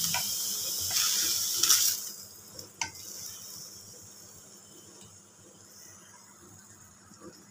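Diced beetroot sizzling in a hot stainless steel kadai, wet with just-added water, with a few clicks of a spatula against the pan. The sizzle drops away suddenly about two seconds in, leaving a faint hiss and one sharp tap of the spatula on the pan a little before three seconds.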